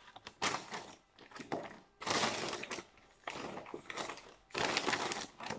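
McDonald's brown paper takeaway bag crinkling and rustling as hands rummage inside it, in about five irregular bursts with short pauses between.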